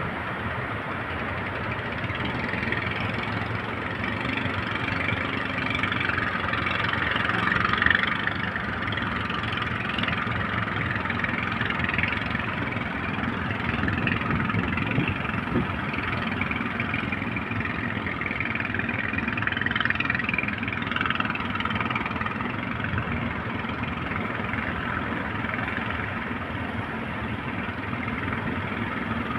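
Big ocean waves breaking and washing in: a steady surf noise that swells and eases, loudest about eight seconds in.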